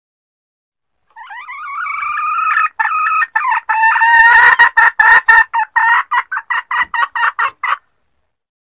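Junglefowl hen calling: a drawn-out call that grows louder, then breaks into a fast run of short repeated clucks, about four a second, that stops near the end.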